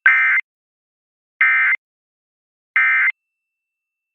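Emergency Alert System end-of-message data bursts: three short, identical bursts of warbling digital tones about a second and a half apart, marking the end of a Required Monthly Test.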